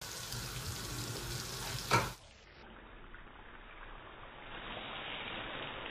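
Peaches sizzling in a hot pan, then a sudden loud burst about two seconds in as the liquor flares up for the flambé. After it comes a quieter, duller hiss of the pan and flames.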